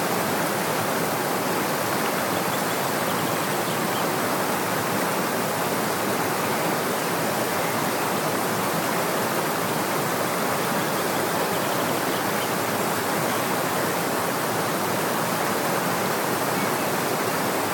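Water of a gorge stream with waterfalls rushing steadily, an even, unbroken noise that does not change.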